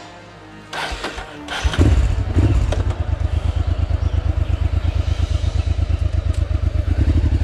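A Honda Africa Twin's twin-cylinder engine starting after a short crank, catching about two seconds in and settling into a steady, evenly pulsing idle.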